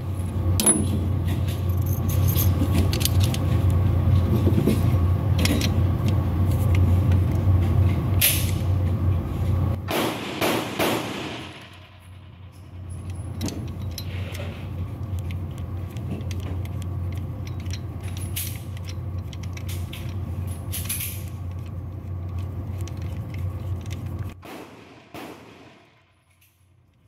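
Clicks and light metallic clatter of a Beretta 92X pistol's slide, guide rod and compensator being handled and fitted together, over a steady low hum that dips about eleven seconds in and cuts off suddenly near the end.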